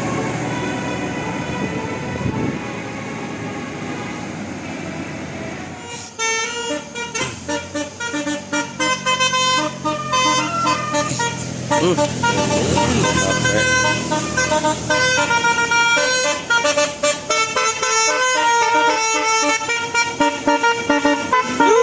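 Bus telolet horn of the 'basuri' type: a multi-tone musical horn honking a quick melody of short, stepped notes. It starts about six seconds in, after several seconds of vehicle noise.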